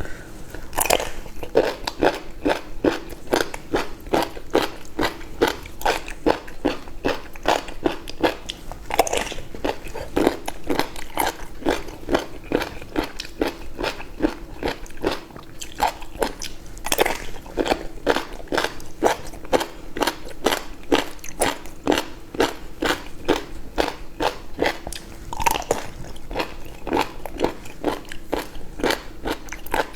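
Close-miked chewing and biting of seafood: rapid wet clicks and crunches, about two to three a second, with no pauses.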